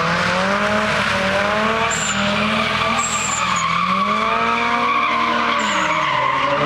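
Nissan 240SX cars' SR20 four-cylinder engines revving up and down repeatedly while drifting, over a continuous tyre screech, with a few short high tyre squeals about two, three and six seconds in.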